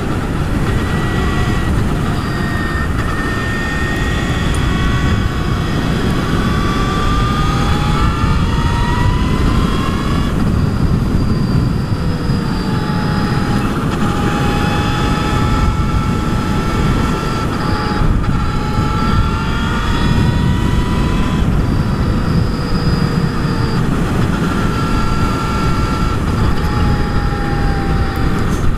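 Brammo Empulse R electric motorcycle's motor whine, its pitch rising slowly under acceleration and dropping as the throttle is eased, several times over. Heavy wind noise on the helmet microphone runs underneath.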